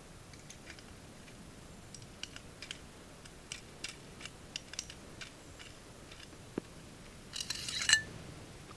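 Metal parts of a frame saw clicking and ticking as they are handled, then a short metallic scrape near the end as a metal piece is drawn out of its red holder, finishing in a sharp clink, the loudest sound.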